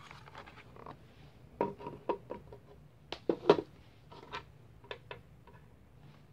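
Hands handling a Kospet Prime 2 smartwatch, lifting it out of its box insert and setting it and its rubber strap down on a wooden table: a scatter of light clicks and knocks, the loudest about three and a half seconds in.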